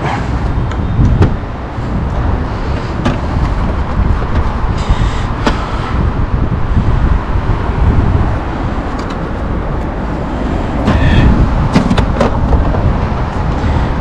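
Plastic clicks, knocks and brief scrapes from a car's LED tail light housing being handled and turned over, over a steady low rumble.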